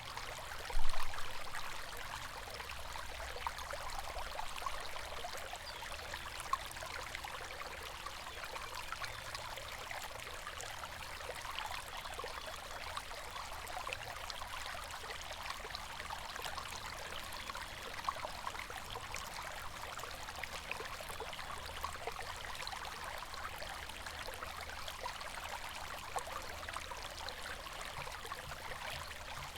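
River water flowing steadily, with a busy babble of small gurgles and splashes over a low rumble. A short, loud knock comes about a second in.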